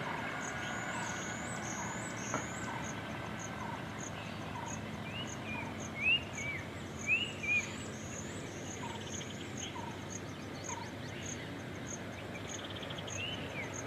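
Outdoor wildlife ambience: birds giving short rising-and-falling whistled calls, loudest about six to seven and a half seconds in, over a steady fast high-pitched insect-like chirping. A vehicle's noise fades away in the first couple of seconds.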